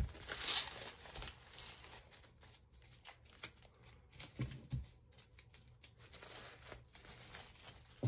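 Plastic bag crinkling and tape being pulled off as hands unwrap a taped bundle, in irregular rustles, busiest in the first second.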